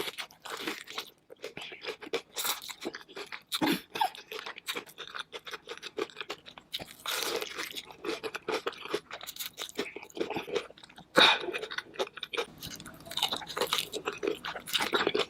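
Close-miked chewing of crunchy food: a fast, irregular run of crisp crunches and bites.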